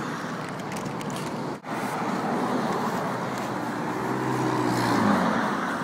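Road traffic: a steady rush of cars passing. About four seconds in, one vehicle's engine hum grows louder and goes by. The sound cuts out for an instant about a second and a half in.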